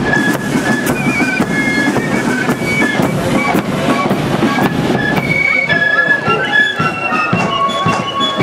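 Marching flute band playing a tune on flutes in unison, with steady drum beats keeping the march time.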